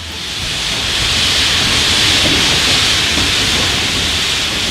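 Shay geared steam locomotive venting steam: a steady, loud hiss that builds over the first second, over a low rumble.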